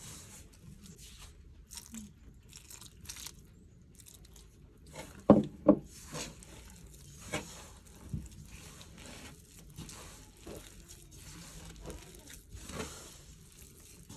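A hand mixing roti dough of flour and grated coconut in a stainless steel pot makes a soft, crunchy rubbing and scraping. About five seconds in come two sharp knocks, the loudest sounds, and there are a few lighter knocks later on.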